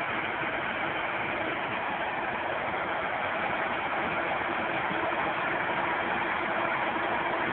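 Tractors and a potato harvester working in a field: a steady mix of diesel engine and machinery noise, growing slightly louder near the end.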